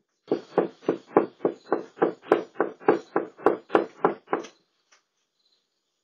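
Rapid, steady knocking on a front door with the fist: about fifteen loud knocks at roughly three a second, stopping about two-thirds of the way through.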